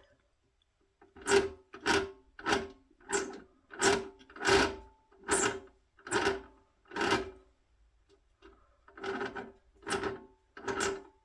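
Short rasping rubbing strokes repeated in a steady rhythm, about one and a half a second, with a brief pause about two-thirds of the way through.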